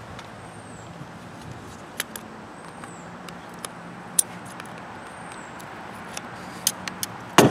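A few short, sharp clicks of steel scissor blades against the plastic handle of a leaf-blower recoil starter as the old pull rope is pushed out of it, over a steady low background hum.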